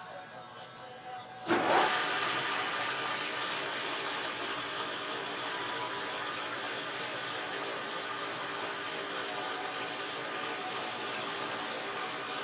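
An electric motor-driven machine switches on suddenly about a second and a half in and keeps running at a steady speed.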